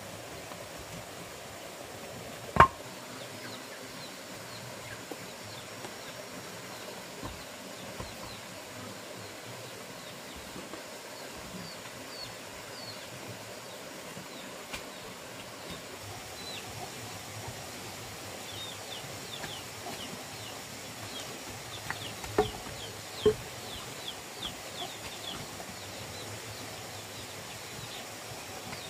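Faint, quick chirps of small birds over a steady background hiss. One sharp knock sounds a few seconds in, and two more come about a second apart later on.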